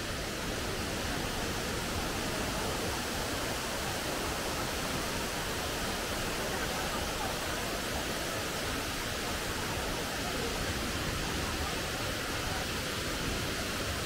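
Steady rush of water pouring down the tufa cascades of Kravica waterfall, an even hiss that does not change.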